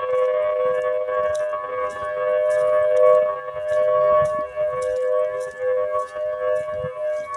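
Federal Signal Thunderbolt 1003 warning siren sound effect holding a steady two-note chord that wavers slightly in loudness, with faint high ticks about twice a second.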